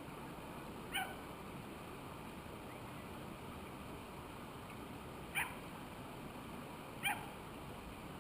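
A dog barking or yelping three times, short and sharp, over a steady rushing noise.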